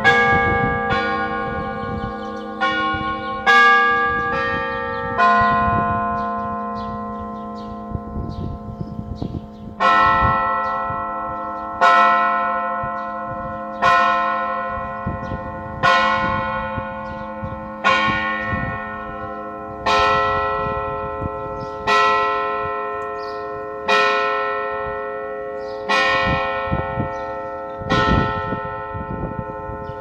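Church bell tolling: a few irregular strikes in the first seconds, then steady strokes about every two seconds from about a third of the way in. Each stroke rings on and slowly fades into the next.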